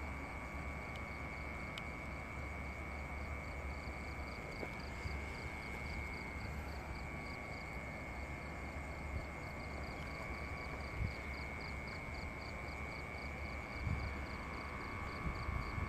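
Night insects chirping: a steady high trill with a rhythmic pulsing chirp about three to four times a second above it, over a low rumble, with a few soft thumps near the end.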